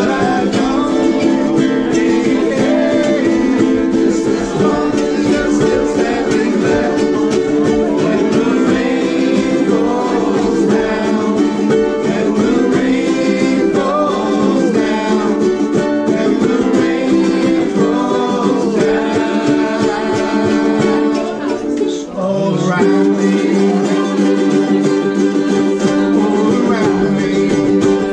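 A roomful of ukuleles strummed together in time while the group sings along. The playing dips briefly about three-quarters of the way through, then comes straight back in.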